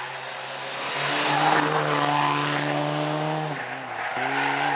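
Dacia Sandero rally car's engine pulling hard out of a bend at steady high revs; near the end the revs dip briefly and then pick up again.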